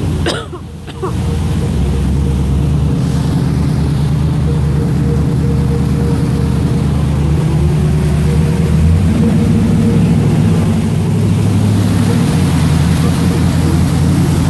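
A vehicle's engine running steadily at low speed as it drives through flood water on a street, with a brief drop in loudness just after the start.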